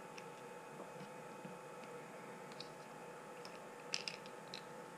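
Faint clicks and taps of small plastic and metal parts as a front wheel of a Traxxas Rustler RC truck is handled and worked off its hub, with a short cluster of clicks about four seconds in, over a steady faint hum.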